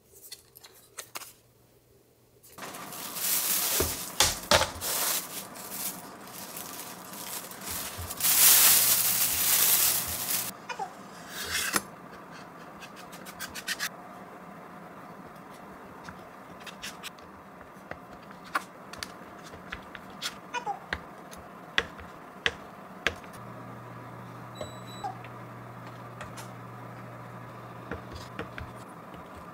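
A kitchen knife cuts through a sheet of cookie dough, its blade tapping on the cutting board in scattered sharp clicks. Two longer, loud rushing noises come earlier, in the first third.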